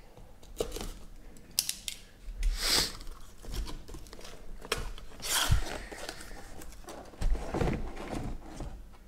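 Cardboard shipping case being handled and opened: its flaps are pulled back and the carton lifted off. It makes several separate scraping and rustling sounds with a few clicks between them.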